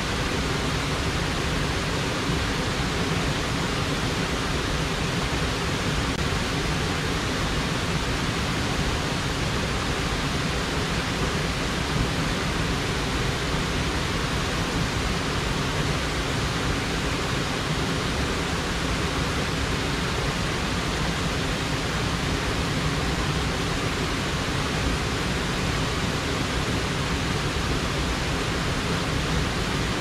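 Steady, even rush of stream water flowing through the jungle.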